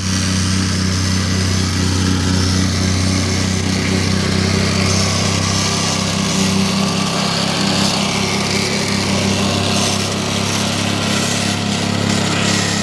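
Vibratory plate compactor running steadily, its small engine driving the steel plate as it compacts damp soil.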